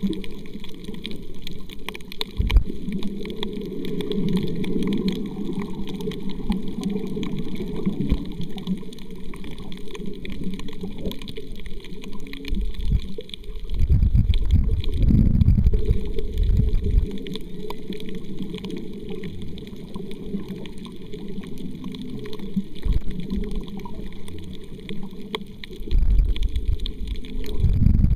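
Muffled underwater sound picked up by a submerged camera: a low rushing, gurgling water noise, swelling into louder rumbles about halfway through and again near the end.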